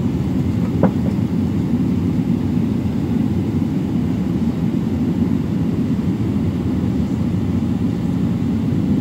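Cabin noise of a Boeing 777-300 taxiing: a steady low rumble from the engines and rolling gear heard through the fuselage, with a brief faint creak about a second in.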